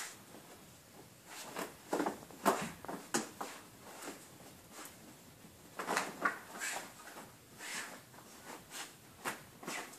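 Spanish water dog digging and nosing at blankets and fleece bedding in a whelping box: irregular rustling and scraping of fabric, loudest in two flurries. This is the nesting a bitch does to make her bed ready before giving birth.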